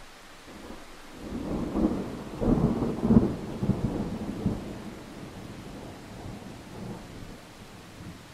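Steady hiss of falling rain, with a low rumbling burst of a few seconds that is loudest about three seconds in and fades by about five seconds.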